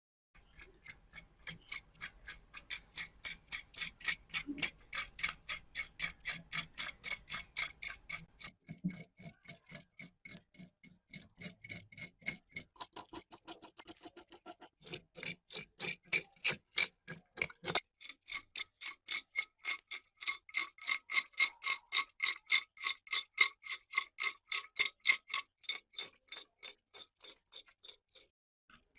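Fast, even ticking, about four ticks a second, each tick with a short metallic ring.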